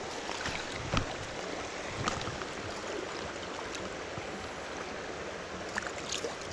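Stream water rushing steadily over a riffle, with a few short knocks about one, two and six seconds in.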